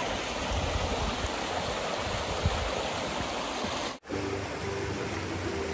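Shallow creek water rushing steadily over rocks, with a brief dropout about four seconds in before the rush resumes.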